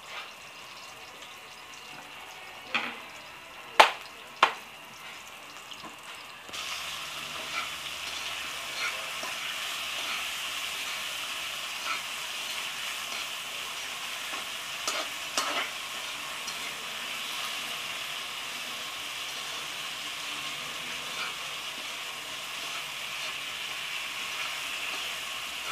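Food frying in an aluminium wok: a light sizzle with a few sharp knocks, then about six seconds in the sizzle jumps suddenly louder as sliced tomatoes go into the hot oil with sautéed garlic, onion and chili, and it carries on frying steadily while being stirred, with occasional utensil taps on the pan.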